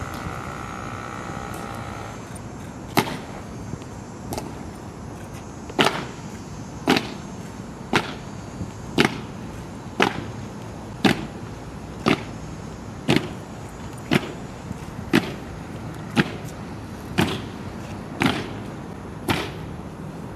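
Honor guard's boots stamping the pavement in unison in a slow ceremonial march, one sharp stamp about every second.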